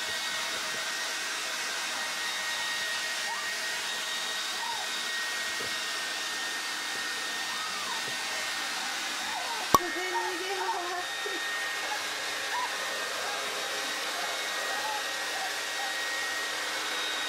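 Hair dryer running steadily with a thin high whine on top, drying a toy poodle puppy after its bath. Faint short whimpers come and go in the middle, and a single sharp knock sounds about ten seconds in.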